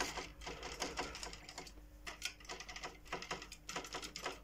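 Irregular clicking and light rattling as the Crown CTS 8200 amplifier's plug-in channel cards are wiggled by hand in their slots, to test for a loose connection behind the amplifier's relay dropout. A faint steady hum runs underneath.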